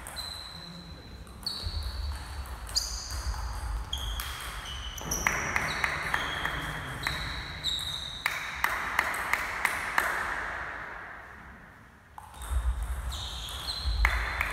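Table tennis ball clicking off the paddles and the table, each knock leaving a short high ping. There is a brief lull about three-quarters of the way through, then the hits resume as a new rally starts.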